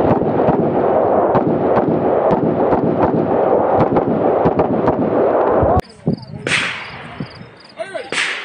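A string of shots from a DDMK18 AR-style carbine, coming irregularly about two a second over a steady rush of wind on the microphone. About six seconds in it cuts off suddenly, leaving a quieter stretch with a couple of sharp cracks.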